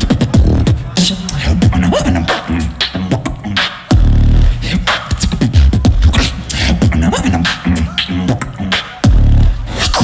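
Solo beatboxing into a microphone over a PA, a live battle routine: a fast rhythm of sharp snare and hi-hat clicks over deep vocal bass. Heavy sustained bass drops land about four seconds in and again about nine seconds in, with short gliding vocal tones in between.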